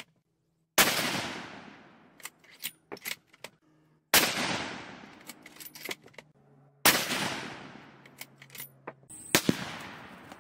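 Three rifle shots from a Winchester Model 70 Featherweight Compact in .243 Winchester firing 95-grain Ballistic Silvertip loads, about three seconds apart, each rolling away in a long echo. Light clicks between the shots come from the bolt being worked.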